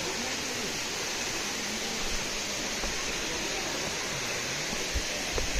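Steady rushing noise of flowing stream water, even and hiss-like throughout, with a few soft footfalls on the path near the end.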